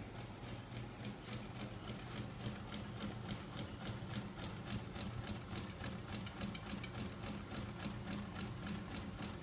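Small 24 V DC electric motor running with a steady hum and a faint high whine as it drives a magnet-coupled flywheel and crankshaft rig through rubber bands. The rotating mechanism clicks in an even rhythm, about five clicks a second.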